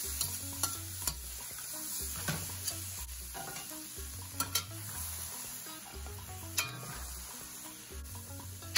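Sliced vegetables sizzling in oil in a stainless steel pan as they are stir-fried, with a spatula scraping and clicking against the pan every second or so. Near the end they are scooped out of the pan.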